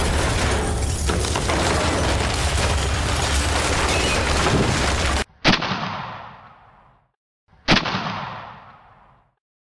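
Recorded explosion and gunshot sound effects played back one after another: a loud, dense rumbling explosion effect that cuts off abruptly about five seconds in, then two single sharp bangs about two seconds apart, each dying away over about a second and a half.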